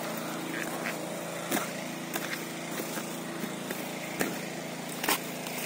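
A small engine running steadily at a constant pitch, with a few sharp clicks over it.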